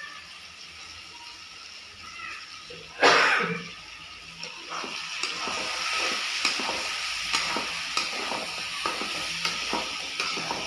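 Chicken and vegetables frying in a black kadai, stirred and scraped with a spatula: a steady sizzle with the spatula knocking and scraping against the pan about three times a second. About three seconds in there is one loud, short hissing burst.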